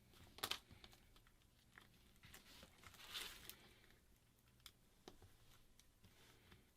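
Near silence with faint handling sounds of a phone being reassembled: a few small clicks and taps and a brief rustle about three seconds in, as a replacement screen is fitted into the phone.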